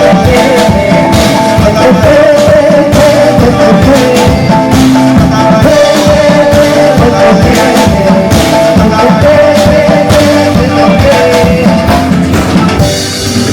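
Loud, upbeat Latin-style party dance music with a steady drum beat and a bright melody line.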